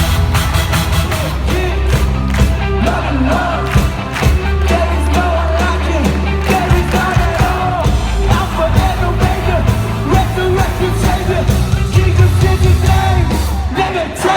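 Live worship band playing an upbeat song through a loud concert sound system: heavy bass, a steady beat and a sung melody, with the crowd yelling and cheering along.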